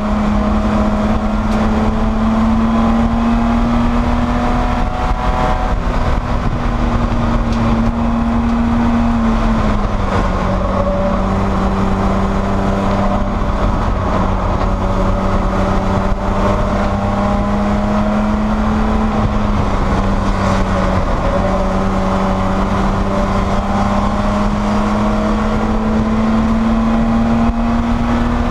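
Spec E30 BMW's inline-six racing engine running hard under load, its note climbing slowly, dropping about a third of the way in and dipping again briefly past two-thirds, then climbing once more.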